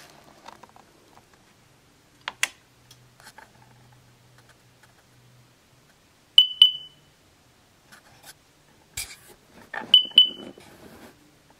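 Power wheelchair joystick controller beeping: two quick double beeps of the same high tone about three and a half seconds apart, with a few sharp clicks between them. The joystick has a fault.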